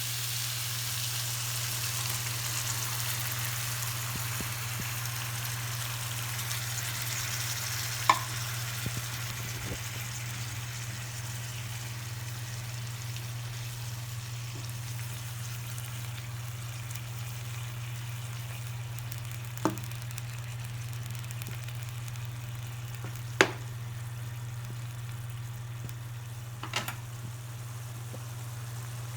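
Chicken livers sizzling in a pan, a steady hiss that slowly softens over a low steady hum. A few sharp knocks sound through it, the loudest about eight seconds in and again near twenty-three seconds.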